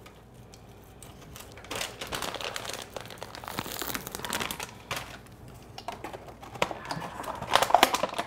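Plastic bag crinkling as it is handled and folded shut, in irregular bursts that are loudest near the end.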